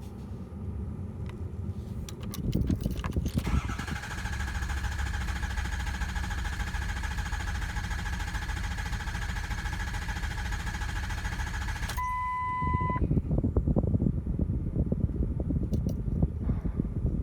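Ford 6.0 L Power Stroke diesel in a 2004 F-250 being cranked by its starter for about eight seconds with a steady whine, hot and failing to start. A one-second beep sounds as the cranking stops, followed by a louder, uneven low rumble.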